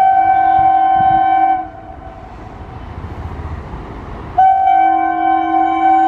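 A MEMU electric multiple unit train's horn blows twice: a blast of about a second and a half, then a few seconds of train running noise, then a second, longer blast that carries on. The horn sounds two notes together, with the lower note coming in a moment after the higher one.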